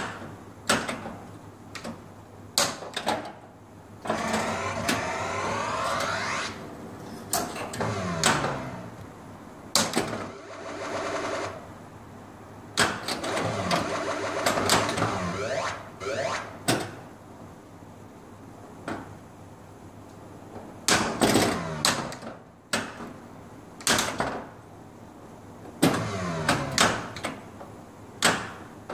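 Gottlieb Volcano pinball machine in play: repeated sharp clacks of its flippers, bumpers and solenoids, with the game's electronic sound effects sweeping and falling in pitch several times.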